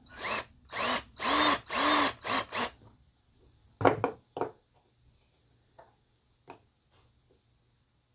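Cordless drill with a long 1/8-inch bit drilling a shallow hole in wood in about six short trigger pulses, the motor spinning up and winding down each time. A couple of knocks and a few faint clicks follow.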